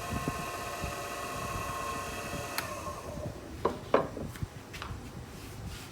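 Wen benchtop wood lathe's motor running with a steady whine, then switched off with a click about two and a half seconds in and spinning down, its pitch falling as it fades. A few sharp knocks follow.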